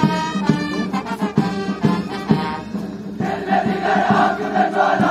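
Parade band music with a steady low note and a regular drum beat about two times a second. About three seconds in, a mass of voices joins in chanting or singing.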